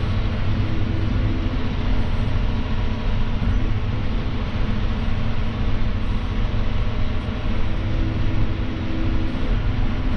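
John Deere 6175R tractor's six-cylinder diesel running steadily under load in the field, heard inside the closed cab as an even, low drone with a faint steady tone on top.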